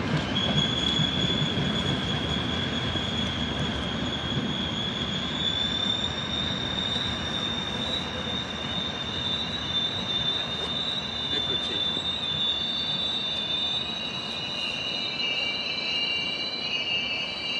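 Passenger train rumbling into a station platform and slowing, its wheels and brakes giving a long high-pitched squeal that holds steady, with more squealing tones joining in over the last few seconds.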